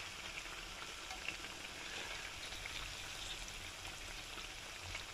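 Balushahi dough rounds deep-frying in hot oil in a wok: a steady, soft sizzle with faint crackles.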